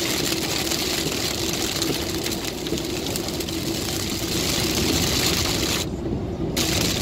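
Inside a car driving in rain on a wet highway: a steady hiss of tyres on the wet road and rain on the car, over a steady engine and road drone. The hiss drops out briefly about six seconds in.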